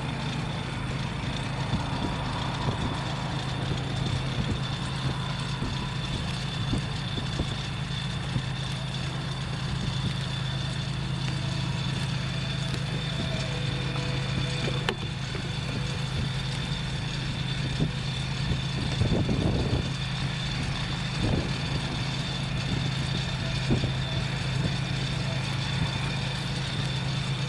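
A steady low engine drone with a thin high whine held above it, unchanging in level, broken by a few brief knocks about two-thirds of the way through.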